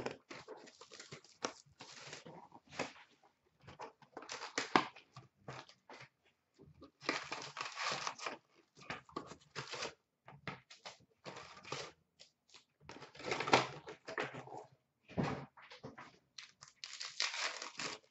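Cellophane wrap crinkled and torn off an Upper Deck SP Authentic hockey card box, then the cardboard box opened and its packs handled, in irregular crackling bursts, the longest about seven seconds in.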